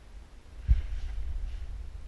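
A single dull low thump a little past a third of the way in, over a steady low rumble, as from a footstep or a knock against the helmet-mounted camera.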